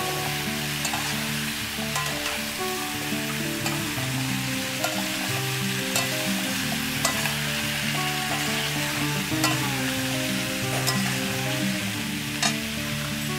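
Vegetables frying with a steady sizzle in a metal kadai while a metal spatula stirs them, scraping and clicking against the pan now and then. Soft background music with held notes plays underneath.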